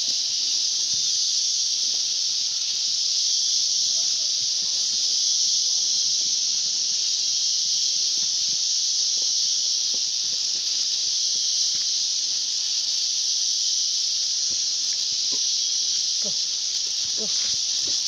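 A dense, steady chorus of insects: a high, shrill hiss that holds without a break.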